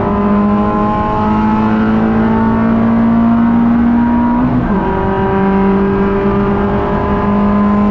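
Suzuki Swift Cup race car's four-cylinder engine at full throttle, heard from inside the stripped, roll-caged cabin: the pitch climbs steadily, drops sharply with an upshift about four and a half seconds in, then climbs again.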